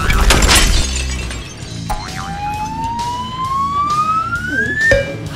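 Background music with a loud noisy burst in the first second, then a whistle-like sound effect gliding steadily upward in pitch for about three seconds, ending in a short lower tone.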